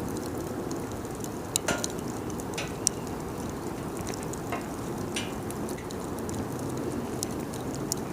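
Wood bonfire crackling: scattered sharp pops and snaps over a steady low rush of the flames.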